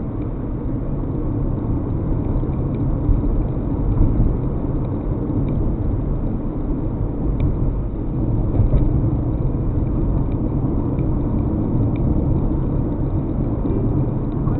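Steady low rumble of a car driving, road and engine noise heard from inside the car, with a few faint clicks.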